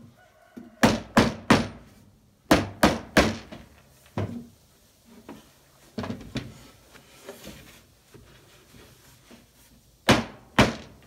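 Sharp knocks on a clamped, finger-jointed spruce hive box. They come as two quick sets of three near the start and a single knock after them, then softer taps, then two loud knocks near the end.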